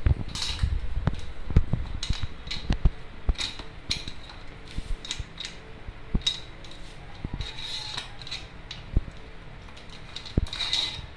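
Metal parts of a bike repair stand being handled and fitted together: a run of irregular clicks, clinks and knocks.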